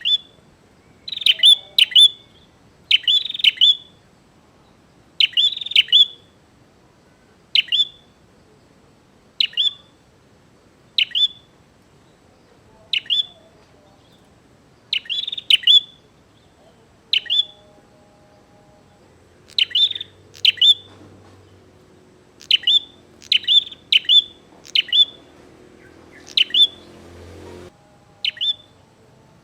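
Prinia (prenjak) calling in a lively, challenging way: short, sharp, high chirps repeated every second or two, singly or in quick doubles and triples.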